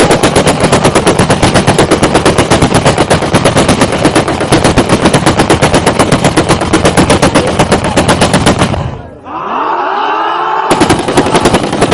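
Automatic gunfire: a long, rapid burst of about eight shots a second for nearly nine seconds, stopping suddenly. Voices call out in the short pause, and another rapid burst starts near the end.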